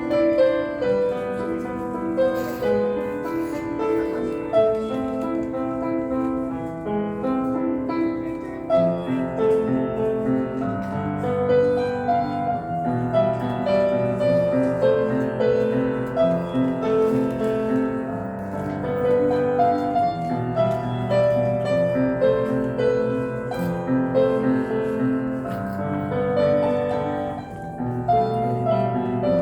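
Solo piano playing a flowing piece of held chords under a melody.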